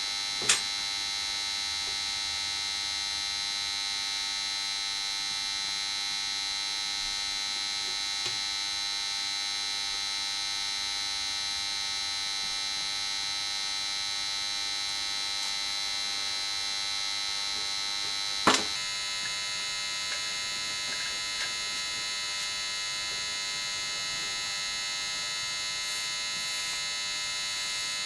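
A steady electrical whine of many high tones held together. Two sharp metal clicks from hand tools on a small motorcycle engine's cylinder head stand out over it, one about half a second in and a louder one about two-thirds of the way through.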